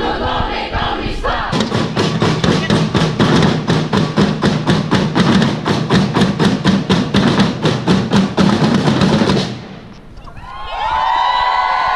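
A drum beaten in a fast, even beat, about four strokes a second, with crowd chanting at the start. The drumming stops about nine and a half seconds in, and a steady sound holding several pitches comes in near the end.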